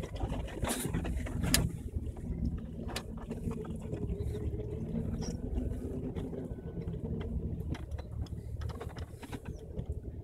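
Jeep Wrangler engine running steadily at low revs while driving over a rough trail, with scattered knocks and clicks from the vehicle as it moves, the loudest about one and a half seconds in.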